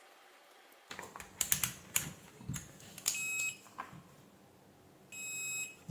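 A digital multimeter's continuity buzzer beeps twice, a short beep about three seconds in and a longer one near the end, amid light clicks and taps of the probes. Each beep shows a good connection through the kettle base's bypassed connector.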